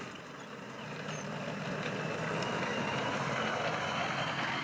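A heavy vehicle's engine running, a dense mechanical noise that grows gradually louder and begins to fade out right at the end.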